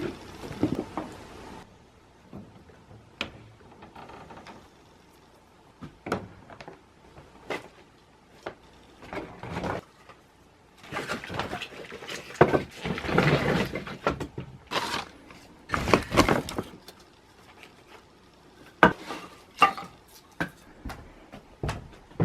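A string of sharp knocks and clicks from objects being handled and set down, with stretches of rustling or scraping in the middle.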